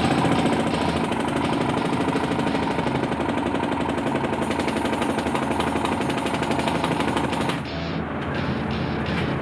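A breaker (jackhammer) hammering rapidly and steadily into the slag channel of a ferronickel electric smelting furnace, breaking out the solidified slag and lining. It stops abruptly shortly before the end.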